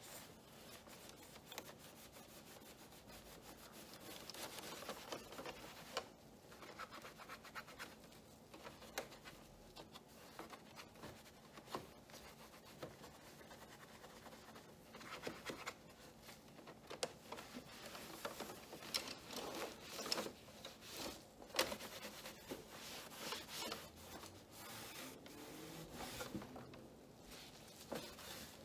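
A cloth wiping and rubbing over the plastic parts inside an open printer: soft, irregular swishes with scattered light clicks and taps.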